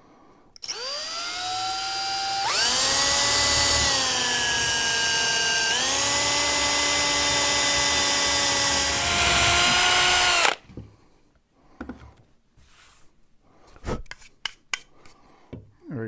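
Cordless drill running and boring small holes into jarrah hardwood: it spins up about half a second in and whines steadily for about ten seconds, its pitch stepping up and down a few times, then stops suddenly. A few light knocks and taps follow.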